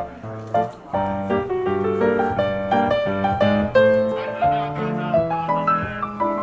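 Background keyboard music: a quick melody of short notes over lower held notes.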